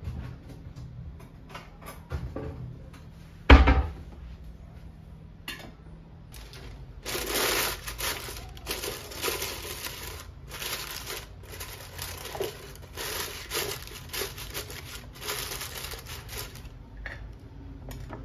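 Wax paper crinkling and rustling in repeated spells as it is crumpled and pressed into an air fryer basket, preceded about three and a half seconds in by a single sharp knock, the loudest sound.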